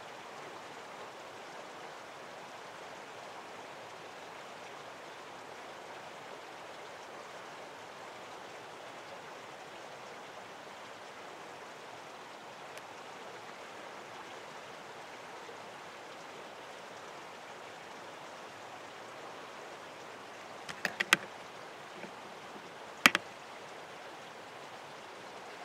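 Steady, even rush of running water. Near the end come a quick run of sharp clicks and then a single louder click, the loudest sound.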